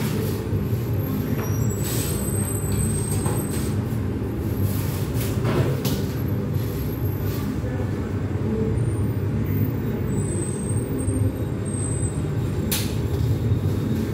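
Steady low rumble of running kitchen machinery, with a few short knocks and clatters of pans and a wire pizza screen being handled on the counter; the sharpest knock comes near the end.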